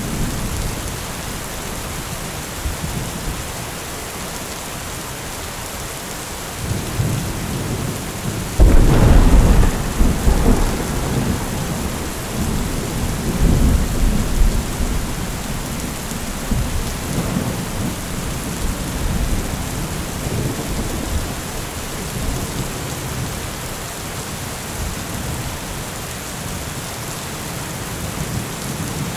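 Heavy rain falling steadily, with a sudden loud thunderclap about nine seconds in that rolls on as rumbling for several seconds, and fainter rumbles of thunder later.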